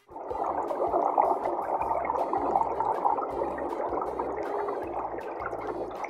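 Underwater ambience: a dense, muffled rush of water with bubbling, starting abruptly, over a low background music bass line.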